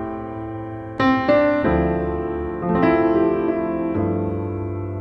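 Background piano music: notes and chords struck every second or so and left to ring out and fade.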